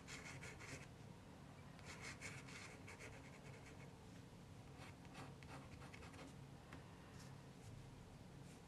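Faint pencil strokes scratching on paper in short scattered groups, the light preliminary sketch lines of a portrait, over a low steady hum.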